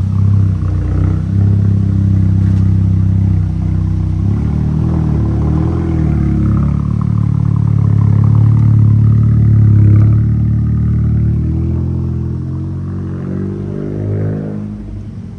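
Volkswagen Golf R Mk7's turbocharged four-cylinder engine and exhaust running with the car under way, a loud, deep, steady drone whose pitch wavers slightly and eases off near the end.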